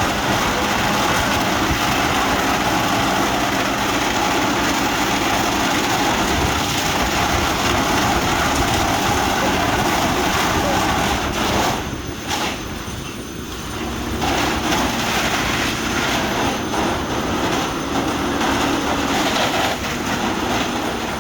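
Fire truck's engine running hard to drive its water pump: a steady loud roar that dips for about two seconds a little past the middle.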